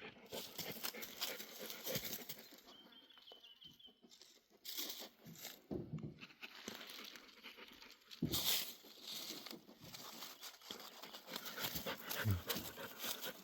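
A dog sniffing and rustling about in short, irregular bursts, with a few brief low sounds.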